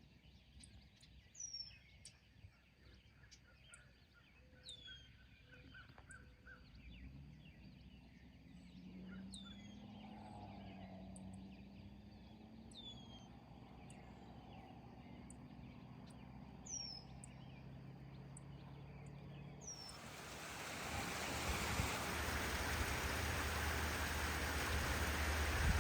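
Birds calling outdoors, with short high falling chirps every second or two and some faint lower calls. About twenty seconds in, a steady hiss of rain sets in.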